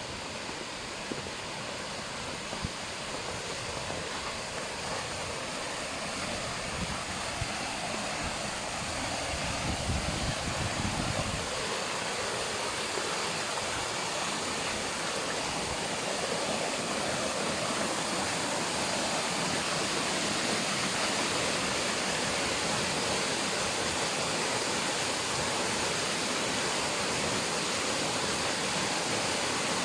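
Mountain waterfall rushing in full flow with fast, turbulent water after a snowfall, a steady roar that grows a little louder as it goes. A low rumble comes in briefly about ten seconds in.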